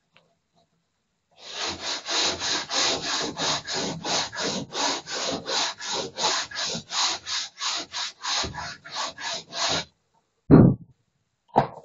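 A hand tool rubbing back and forth over a plastered wall in quick, even strokes, about three a second, for some eight seconds. Then comes a loud thump, and a shorter knock near the end.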